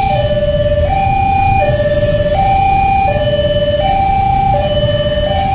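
Railway level-crossing warning alarm sounding its two-tone signal: a high note and a low note alternating, each held about three quarters of a second, warning that a train is approaching.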